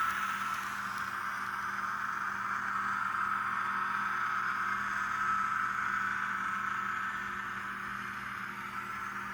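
Diesel railcar engine sound from the ESU LokSound V5 RDC sound file, played through a tiny 11x17 sugar-cube speaker in an N scale Kato RDC2 model, running steadily with a thin, tinny tone. It eases off slightly about seven seconds in.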